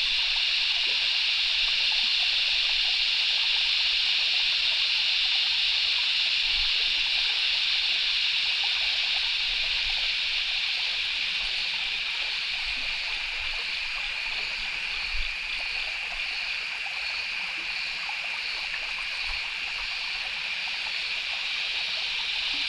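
Steady high-pitched chorus of night insects in the bush, with a pulsing, regularly repeating call joining about halfway through.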